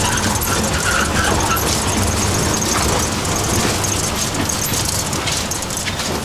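Steady rumble and hiss of an open-sided shuttle bus driving along: road and wind noise.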